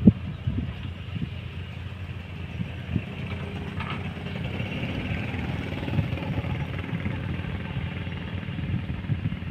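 Diesel engine of a heavy earthmoving machine running steadily, with a few short knocks about three seconds apart.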